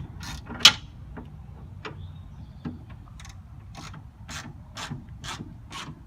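Hand ratchet wrench working the suspension bolts while the coilovers go in: one sharp clank about half a second in, then a run of ratcheting strokes, about two a second, in the second half.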